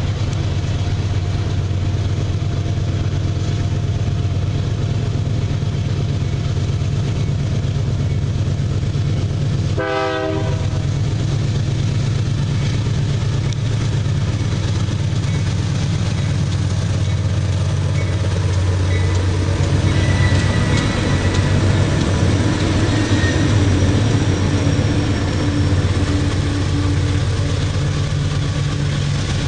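GE diesel-electric locomotives hauling a loaded iron-ore train, their engines running with a steady deep drone as they approach and pass. The sound gets louder in the last third as the lead units come alongside.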